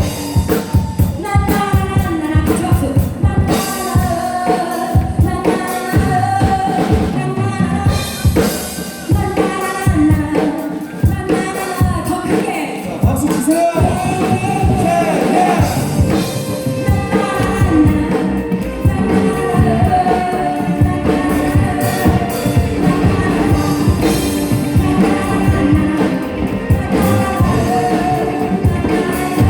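Live rock band playing with a singer: vocals over drum kit and amplified instruments.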